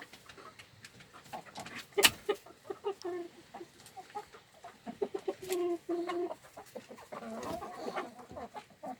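Chickens clucking, with a string of short low calls. A single sharp knock sounds about two seconds in, among lighter clicks and scratches.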